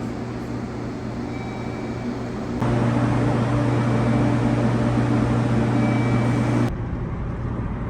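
Steady electrical-mechanical hum of a JR Kyushu 783 series electric train standing at the platform, its onboard equipment running. About two and a half seconds in, a louder, deeper hum with steady tones starts abruptly and cuts off just as suddenly about four seconds later.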